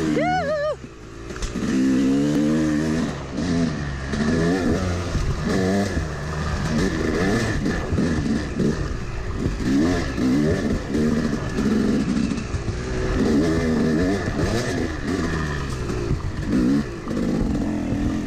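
Yamaha YZ250 two-stroke single-cylinder dirt bike engine under throttle on a trail. The engine revs up and down over and over as the rider rolls on and off the gas, with a short drop-off just after the start before it picks up again.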